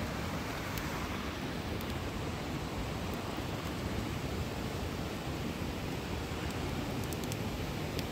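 River water rushing steadily, a constant even noise, with a few faint ticks over it.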